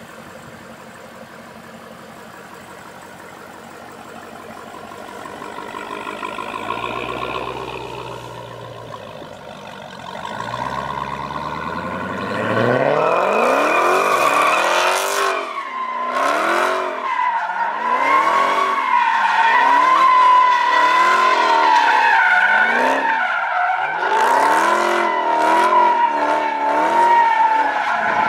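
Dodge Charger SRT Hellcat Redeye's supercharged 6.2-litre HEMI V8 running low, revving briefly about seven seconds in, then climbing hard as the rear tyres break loose. From about halfway through, a steady tyre squeal runs over engine revs rising and falling about once a second as the car spins donuts.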